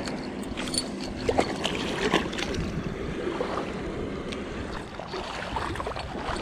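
Small waves washing on a sandy shore with wind on the microphone, and a few light knocks and rustles of handling.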